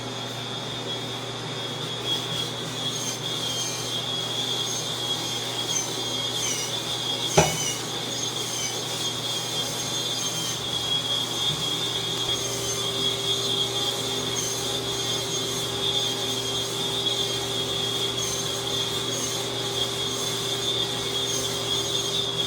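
Electric spin scrubber running, its motor giving a steady high whine while the spinning brush rubs against the side of a bathtub. A second, lower steady tone joins a little before halfway, and there is one sharp knock about seven seconds in.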